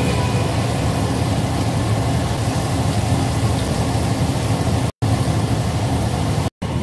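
Chicken wings and drumsticks deep-frying in a stainless steel pan of oil, sizzling and bubbling steadily, over a steady low hum. The sound cuts out abruptly twice for a moment near the end.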